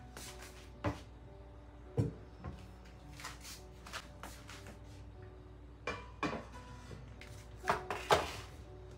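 A string of sharp knocks and clatters as kitchen items are set down on a stone countertop, the loudest two near the end as a plastic dish rack holding plates and cutlery is put in place. Soft background music runs underneath.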